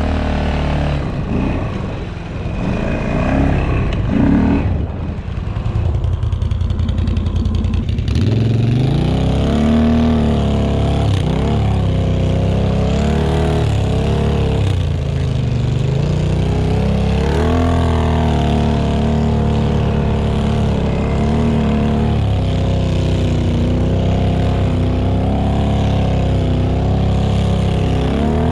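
ATV engine running, its pitch rising and falling again and again as the throttle is worked. The sound changes abruptly about eight seconds in.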